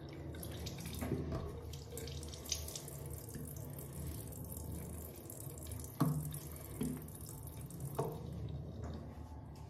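Tap water running into a bathroom sink while a facial cleansing brush is rinsed under it, with a few light knocks, the loudest about six seconds in.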